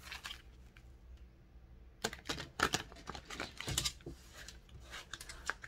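Tarot or oracle cards being shuffled and handled by hand: a run of quick, irregular soft clicks and flicks, thinner for the first couple of seconds and busier from about two seconds in.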